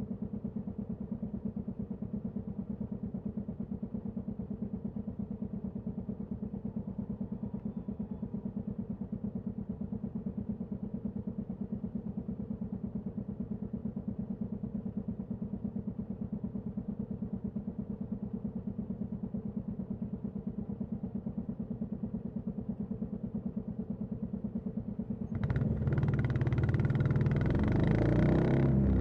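Royal Enfield Classic 350's single-cylinder engine idling with a steady, even beat through the exhaust. About 25 seconds in, the sound turns suddenly louder and fuller as the bike revs and pulls away.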